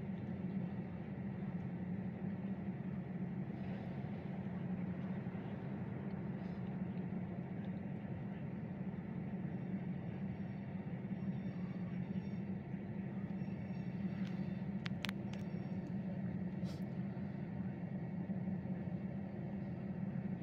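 Steady low engine rumble, unchanging and idling, with a few sharp clicks about three-quarters of the way through.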